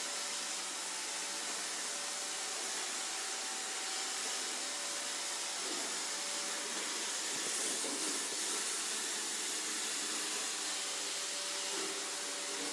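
iRobot Roomba robot vacuum running: the steady hissing whir of its suction fan and brushes, with a faint steady whine underneath.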